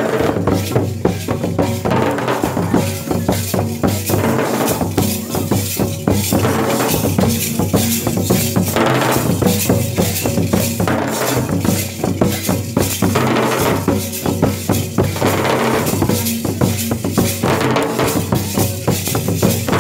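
Santali folk dance drumming: laced barrel drums played by hand and a rope-tensioned drum beaten with sticks, keeping up a dense, steady rhythm for the dancers.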